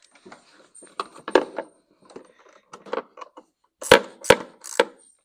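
Small metallic clicks and clinks from work on a mower's battery terminals, with three sharp knocks near the end.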